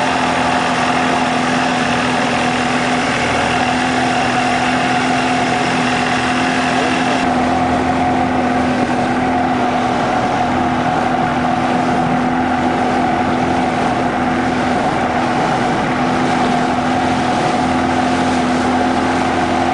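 A fishing boat's engine running steadily under way, with the hiss of water rushing past the hull and wake. About seven seconds in, the water hiss drops away while the engine hum carries on unchanged.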